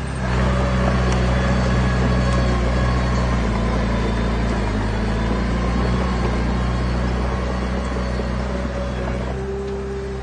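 Diesel engine of heavy earthmoving machinery running steadily, a low drone whose pitch shifts slightly about halfway through.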